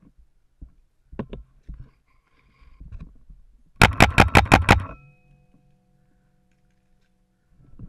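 Paintball marker firing a rapid burst of about seven shots in a second, about four seconds in, after a few fainter knocks.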